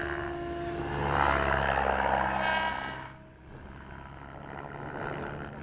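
Radio-controlled 3D helicopter flying aerobatics: a steady rotor and motor whine with shifting pitch, loud for the first three seconds, then dropping away sharply and coming back more faintly.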